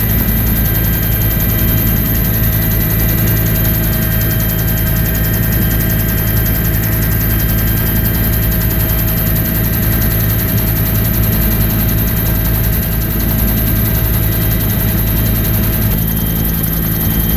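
Bell UH-1 Huey helicopter in cruise flight, heard from inside the cabin with the side door open: a loud, steady drone of the rotor and turbine engine with a high steady whine over it.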